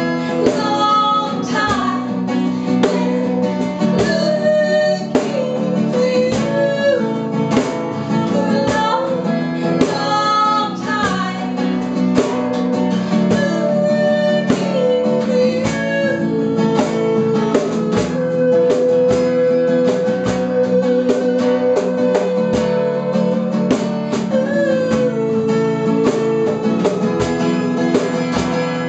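A woman singing a song to a strummed acoustic guitar, performed live; she holds one long note about two-thirds of the way through.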